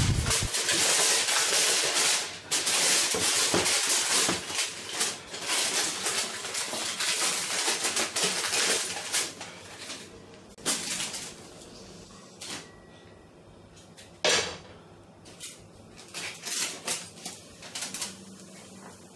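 Aluminium foil crinkling and rustling as it is pressed over and around the rim of a steel cooking pot. This is followed by a few scattered knocks and clatters, the loudest a single sharp knock about two-thirds of the way through.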